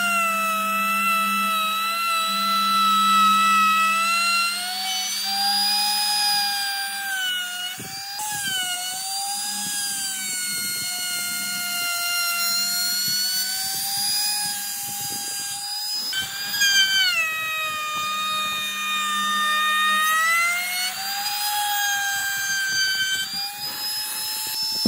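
Handheld trim router running at high speed while its bit cuts along the edge of a thick wooden block. Its whine falls and rises in pitch several times as the cut loads and frees the motor.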